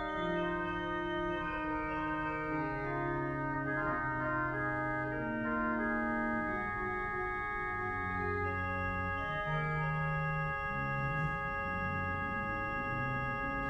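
Foley-Baker pipe organ playing slowly: high chords held steady throughout while lower notes move beneath them, changing every second or so.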